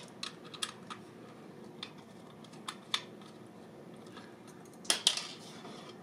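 Sparse small metallic clicks and ticks of a Phillips screwdriver turning screws out of a laptop SSD caddy's metal bracket, with a louder clatter of clicks about five seconds in.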